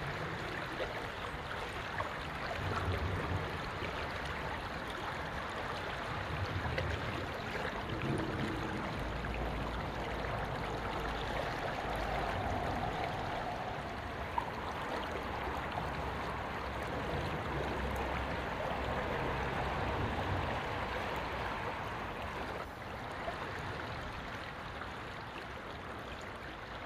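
Riverside ambience under a road bridge: a steady rush of water and traffic noise, with deep rumbles swelling and fading every few seconds as vehicles pass overhead.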